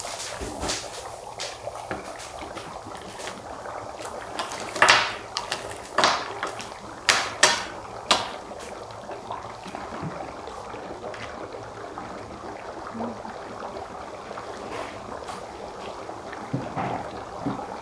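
Dry ice in water bubbling and gurgling steadily inside plastic cups, with a handful of louder bubbling bursts about five to eight seconds in.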